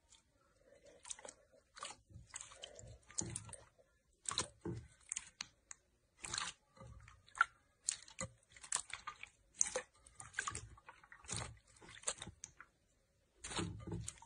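Hands squishing, pressing and folding a bowl of clear slime, giving irregular bursts of sticky crackles and squelches with short gaps between them.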